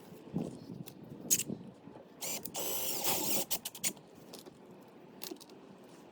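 Scattered clicks and knocks of mechanical handling, with a short whirring rasp lasting about a second near the middle.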